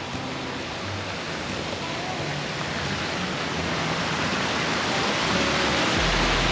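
A steady rushing noise, like water or wind, swelling gradually louder, with faint music underneath.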